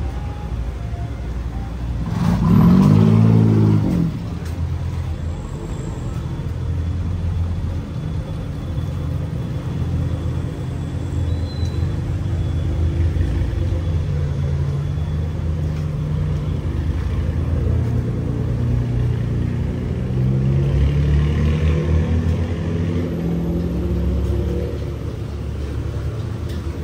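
Street traffic with a constant low engine rumble. About two seconds in, one vehicle's engine passes close and loud for a second or two.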